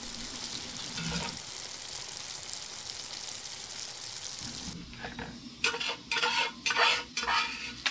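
Pumpkin seeds frying in butter in a cast-iron skillet, a steady sizzle. About five seconds in it gives way to a metal spatula scraping and stirring the seeds around the pan, in quick repeated strokes.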